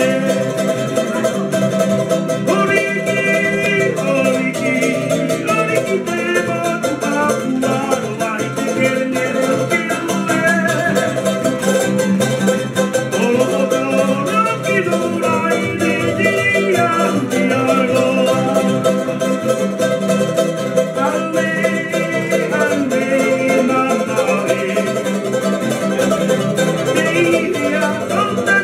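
Tahitian string-band music played live: an acoustic guitar and a Tahitian ukulele strummed together in a steady rhythm, with a man singing.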